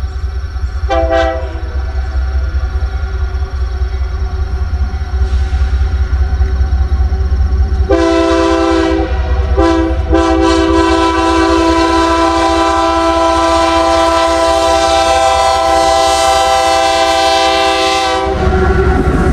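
Diesel freight locomotive's air horn: a short blast about a second in, then from about eight seconds a long chord held for about ten seconds, broken twice briefly near its start. A steady low locomotive rumble runs underneath.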